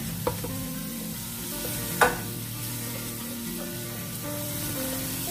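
A metal casserole pot being washed by hand at a kitchen sink: a steady hiss of water and scrubbing, with a light click just after the start and a sharp knock about two seconds in.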